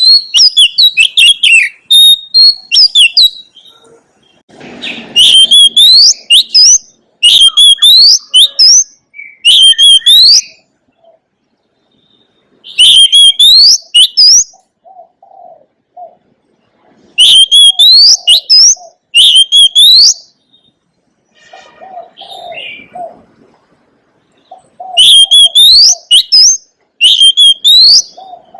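Oriental magpie-robin singing: loud phrases of rapid, sharply rising whistled notes, a few seconds each, repeated with short pauses between them. Softer, low short notes come in the gaps between several of the phrases.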